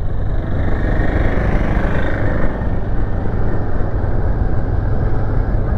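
Royal Enfield Shotgun 650's parallel-twin engine running steadily at city riding speed, heard from the rider's seat, with a steady rush of wind and road noise.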